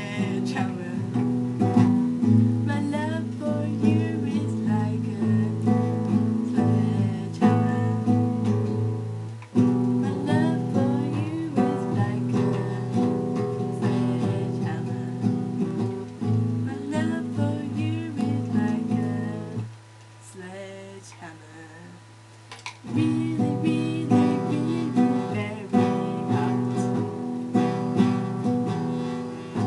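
Acoustic guitar strummed under a singing voice, as a song; it thins out and drops quieter for about three seconds some twenty seconds in, then picks up again.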